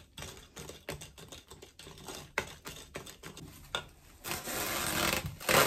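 A mixing utensil clicking and scraping rapidly against a glass bowl as a thick butter, sugar and egg almond cream is stirred. About four seconds in, plastic cling film is pulled from its roll and stretched over the bowl, crackling, loudest near the end.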